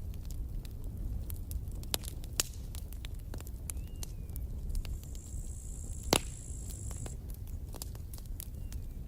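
Campfire crackling: irregular sharp snaps and pops of burning wood over a low steady rumble, with one loud pop about six seconds in. A thin high hiss runs for about two seconds around the middle.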